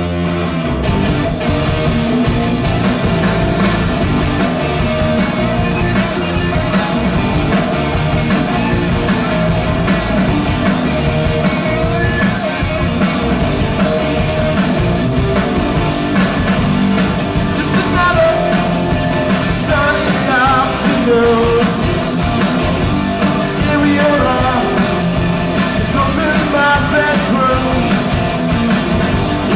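Live rock band playing a song: electric guitars, bass guitar and drums, with a man singing over it in the second half.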